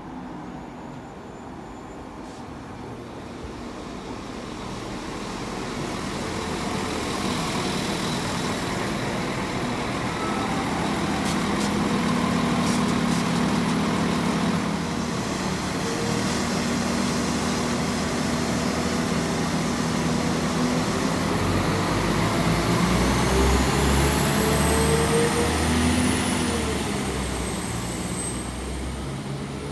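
Northern Class 195 diesel multiple unit's underfloor diesel engines running as the train draws up along the platform, getting steadily louder over the first dozen seconds. About two thirds of the way in the engine note rises in pitch with a low throb, then eases off near the end.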